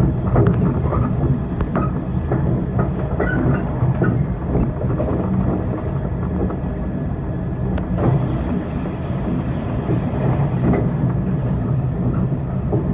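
415-series electric multiple unit running along the line, heard from on board: a steady low rumble of wheels and motors with scattered clicks over the rails.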